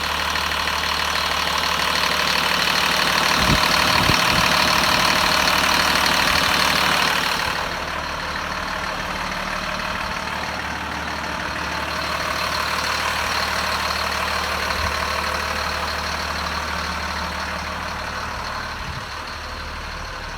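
Caterpillar C7 inline-six diesel engine of a 2006 Blue Bird Vision school bus idling steadily. It is louder for the first seven seconds or so, then quieter.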